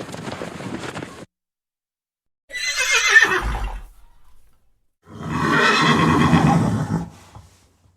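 Horse whinnying twice: a first call about 2.5 s in that falls in pitch, then a longer, fuller call about 5 s in. A steady noisy hiss from the end of the previous recording cuts off about a second in.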